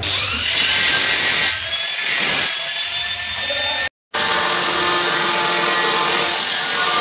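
Handheld angle grinder with a cutting disc cutting through a stair tile: the motor whines up at the start, then the disc grinds steadily through the tile. The sound cuts out briefly about four seconds in, then a steady machine whine carries on.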